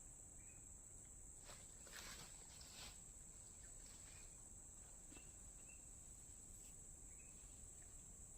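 Near silence: quiet outdoor ambience with a steady high insect drone, a few faint short chirps and a couple of soft knocks.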